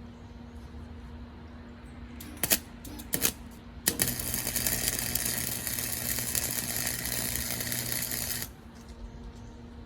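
Electric arc welder welding steel: two brief arc strikes that sputter out, then a steady crackling weld run of about four and a half seconds that stops abruptly. A steady low hum runs underneath.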